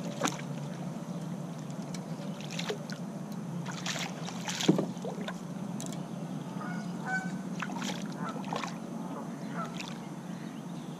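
Small catfish splashing and thrashing at the water's surface beside the boat as it is hand-lined in, heard as a few short, scattered splashes and knocks.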